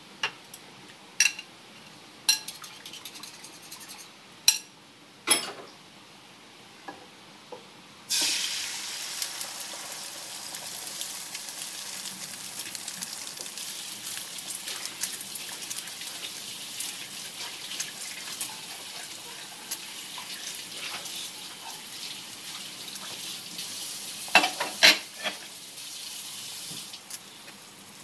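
Beaten egg sizzling in a hot F4 Blue Diamond non-stick wok pan. The hiss starts suddenly about eight seconds in, as the egg hits the pan, and runs on steadily. Before it there are a few sharp clicks and taps, and a short cluster of clicks comes near the end.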